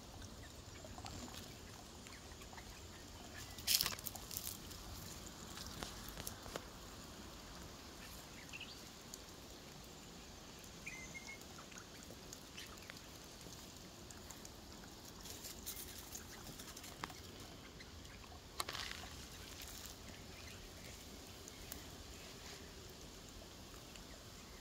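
Quiet outdoor ambience: a low steady hiss with scattered crackles and rustles, the loudest about 4 seconds in and again near 19 seconds. There are a couple of faint, short high chirps in the middle.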